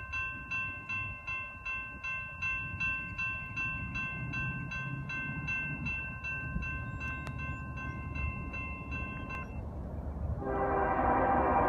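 Railroad crossing bell ringing about twice a second with the crossing gates down; it stops about nine and a half seconds in. Near the end an approaching diesel locomotive's air horn starts sounding, steady and louder than the bell.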